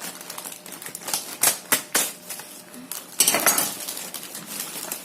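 Packaging of a soldering kit being opened by hand: a series of sharp clicks and knocks with a scraping rustle a little past the middle.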